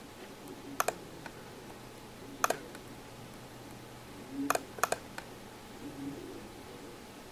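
Computer mouse button clicks while opening a file: a quick double-click about a second in, a single click, then another pair of clicks around four and a half to five seconds in.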